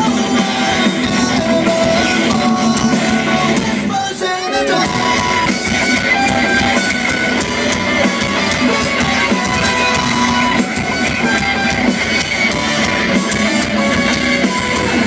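Live rock band playing loud, with guitars and singing, heard from within the concert crowd.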